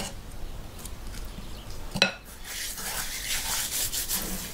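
Two sharp clinks of kitchenware, about two seconds apart. Then hands rubbing a dry red spice mix over the skin of a raw whole lamb, a steady scraping rub.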